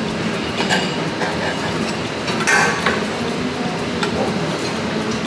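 Knife cutting sausage on a cutting board and metal serving tongs clicking, a handful of short sharp clinks over a steady background hum.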